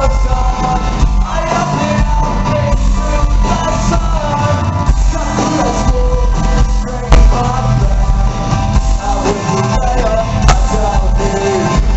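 Music: a song with a sung vocal line over a steady bass and beat.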